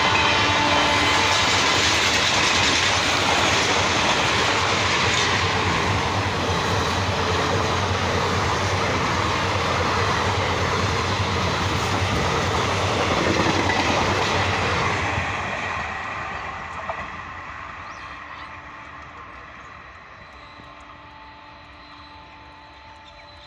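Indian Railways passenger train passing at speed, a steady rumble with wheel clatter from its coaches. The tail of a locomotive horn note dies out in the first second. About fifteen seconds in, the last coach passes and the noise fades away as the train recedes.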